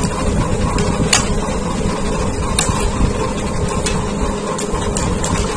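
Steady mechanical hum and noise, with a few light clicks of a metal spoon against a china bowl.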